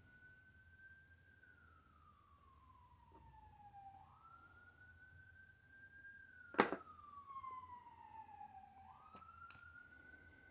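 A faint emergency-vehicle siren wailing, its pitch slowly rising and falling about every five seconds. A sharp click sounds about six and a half seconds in, with a lighter one near the end.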